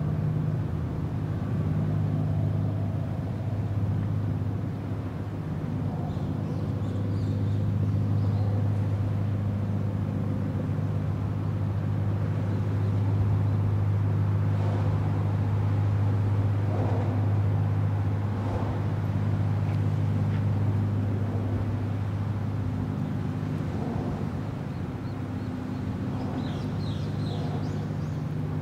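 Bulk carrier's engine: a steady, deep drone as the ship passes, swelling slightly in the middle. Faint high chirps sound briefly a few seconds in and again near the end.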